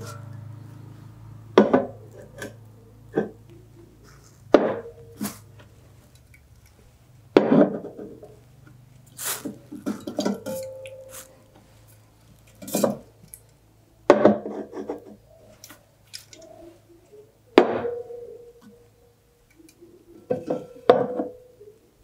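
Full aluminium drink cans being lifted out of a plastic bag and set down one by one on a wooden table: about a dozen separate knocks and clinks, some ringing briefly.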